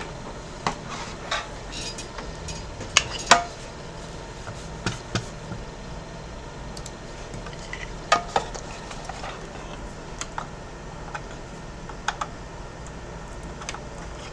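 Scattered sharp clicks and light metallic clinks from handling an Xbox One S console and plugging in an HDMI cable, the loudest about three seconds in and again about eight seconds in, over a steady low hum.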